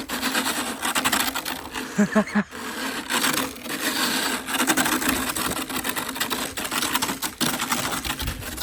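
A rake scraping and dragging through snow in repeated strokes, a dense scratching and crunching.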